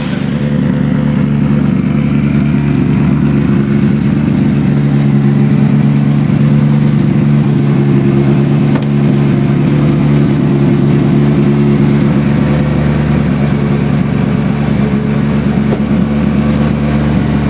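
Hyundai i20 R5 rally car's 1.6-litre turbocharged four-cylinder engine idling steadily and loudly at an even pitch.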